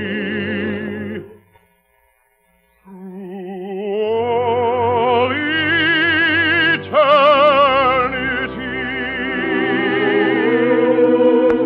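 Operatic male voice with orchestra finishes the last word of a love song about a second in. After a short silence, orchestra and singing come back in with wide vibrato and swell into a loud held close.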